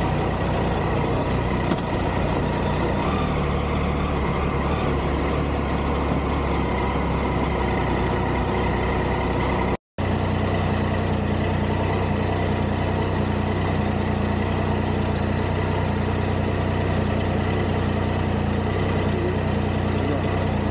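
Vehicle engine idling steadily, a continuous low drone. The sound drops out for a split second about ten seconds in, then the idling carries on.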